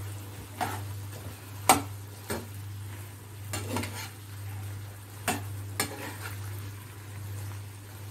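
Metal slotted spatula stirring chicken pieces in a frying pan, giving irregular scrapes and knocks against the pan, the loudest about two seconds in. Under it the chicken sizzles softly and a steady low hum runs throughout.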